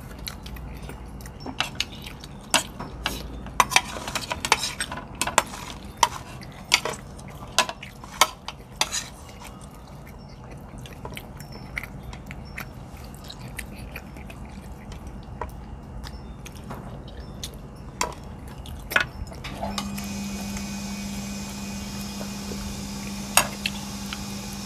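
Metal spoon and fork clicking and scraping against ceramic plates in irregular clinks while a meal is eaten. About 20 seconds in, a steady low hum with a hiss begins under the clinks.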